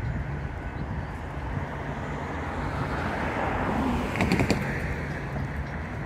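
Freight train moving off, a steady low rumble. A vehicle noise swells and fades about three to four seconds in, and a few quick clicks follow just after.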